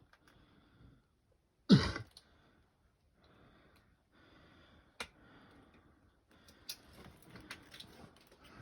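A person clears their throat or coughs once, loudly and briefly, about two seconds in, between soft breathing. A sharp click follows a few seconds later, and scattered clicks and rustling build near the end.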